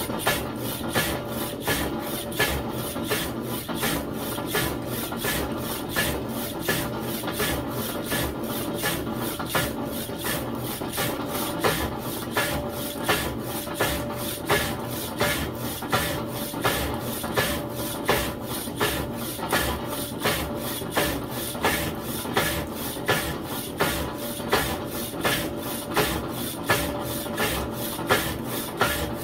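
Peerless power hacksaw with a 14 TPI blade cutting dry through a 1¼-inch ductile iron round, the blade rasping through the metal on each stroke in a steady, even rhythm.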